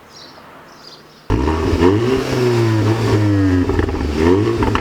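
Audi S1's turbocharged four-cylinder engine revving hard and loud, the revs rising and falling again and again. It starts suddenly about a second in.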